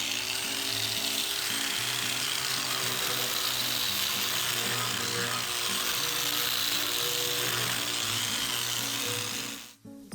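Angle grinder with a hard abrasive strip pad running steadily over a rusty cast-iron table saw top, scrubbing off the rust, then cutting off suddenly near the end. Background music plays underneath.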